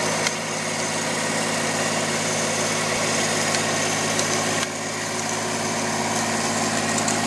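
Compact tractor engine running steadily at an even pitch while the tractor drives a turf edger along a lawn edge.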